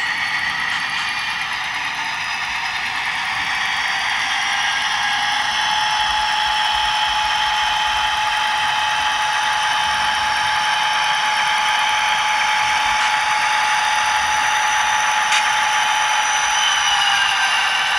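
Model diesel locomotive's Soundtraxx Tsunami sound decoder playing a running diesel engine sound. A steady whine comes in about five seconds in and drops away near the end.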